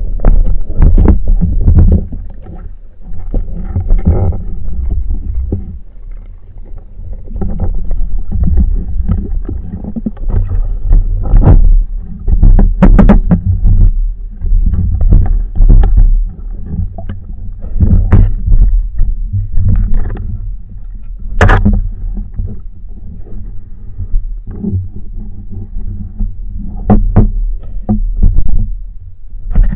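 Underwater noise picked up by a camera on a speargun: a steady low rumble of water and movement, with scattered sharp clicks and knocks from the gun and camera being handled.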